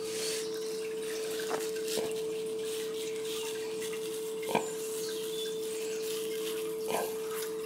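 Metal ice cream scoop scraping and knocking into hard-frozen beetroot ice cream in a plastic tub: a few short scrapes and taps over a steady mid-pitched hum.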